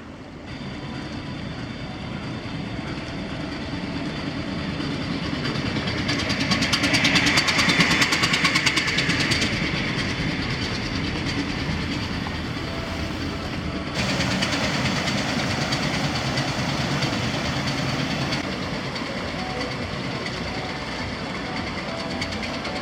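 The 1200 hp MaK diesel engine of a 1939 inland motor cargo ship, running steadily with a rapid, even exhaust beat. It swells louder to a peak about a third of the way in and eases off, then steps suddenly louder a little past the middle.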